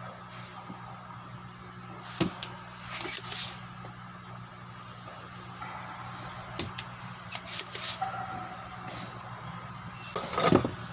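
Small hand tools being handled on a circuit board during a repair: several sharp clicks and a few short hissing bursts, over a steady low hum.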